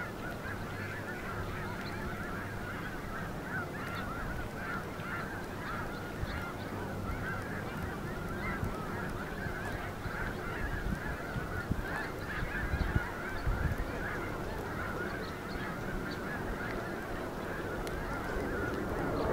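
A large flock of geese honking, many calls overlapping into a continuous chatter.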